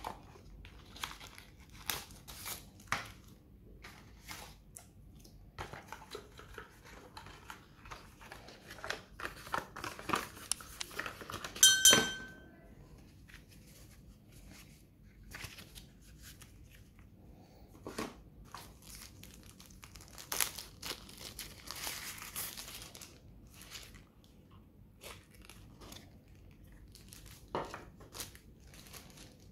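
Paper and cardboard packaging being handled: rustling, crinkling and light taps as a cardboard insert and printed manuals are opened and leafed through. About halfway through comes a single short ringing knock, the loudest sound.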